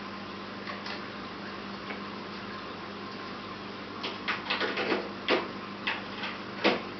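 Steady hum and hiss from running aquarium equipment, with a loose run of about eight sharp clicks starting about four seconds in, the last the loudest.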